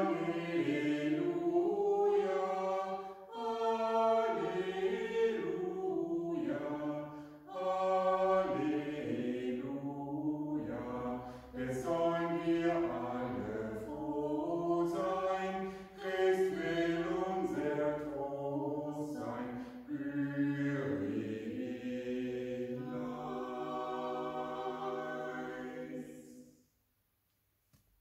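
Small mixed vocal ensemble of four singing a cappella in several phrases with short breaths between them, ending on a long held chord that stops shortly before the end.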